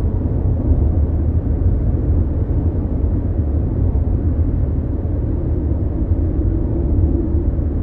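Cabin noise inside a Mazda CX-5 small SUV cruising on the highway: a steady, even low rumble of road and engine noise.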